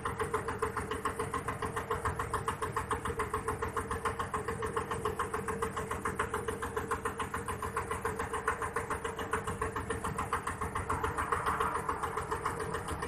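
Boat engine running steadily, an even rapid chugging with a constant hum.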